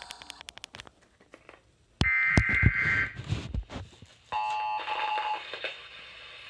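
Emergency Alert System digital data burst: a loud, buzzy, warbling two-tone burst about a second long, starting about two seconds in, after a run of clicks. A cluster of steady tones with noisier radio audio behind starts about four and a half seconds in.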